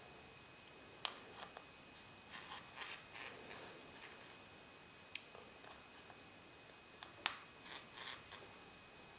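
Small metal tools and parts being handled on a disassembled iPhone 4: sharp little clicks, the strongest about a second in and just past seven seconds, with short scratchy scraping in between.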